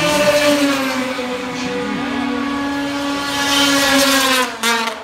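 Formula 500 race snowmobiles' two-stroke engines running hard at high revs as the pack laps the ice oval. The engine note sinks slowly in pitch, then dips and breaks off briefly near the end as a sled lets off.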